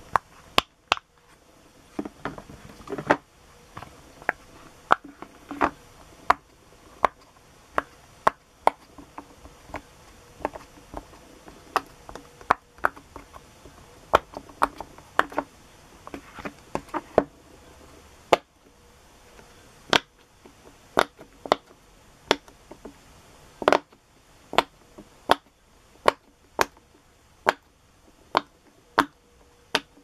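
Silicone pop-it fidget toy bubbles being pressed through by fingertips, giving a long irregular series of sharp pops, sometimes in quick runs and more evenly spaced near the end.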